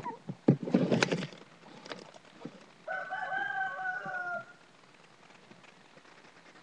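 A rooster crows once, a single call of about a second and a half that falls a little in pitch at the end. Before it, about a second in, a burst of knocks and rustling as the camera is moved.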